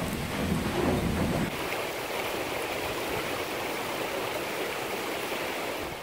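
A water-powered sawmill's low rumble for the first second and a half, then a steady rush of flowing water.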